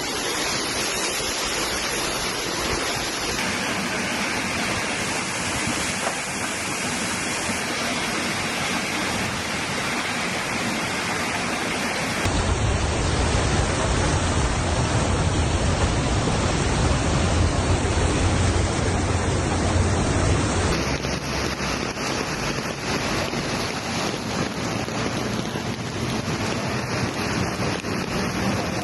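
Heavy downpour and running floodwater: a steady, even rushing noise. It runs through three spliced clips, and the middle one, from about 12 to 21 seconds in, carries a deep rumble under the rush.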